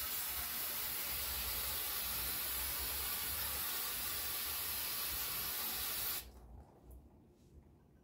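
Aerosol spray can hissing steadily as a brake pad retainer is sprayed off to clean it, cutting off sharply about six seconds in.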